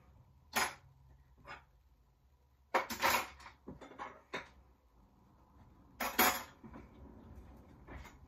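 Dishes and cutlery clattering as they are put away: a string of separate clanks and knocks, the loudest about three seconds in and again about six seconds in.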